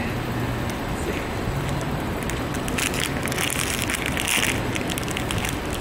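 Foil blind-box packet crinkling and crackling as it is torn open by hand, loudest from about three seconds in to about four and a half, over a steady background rush.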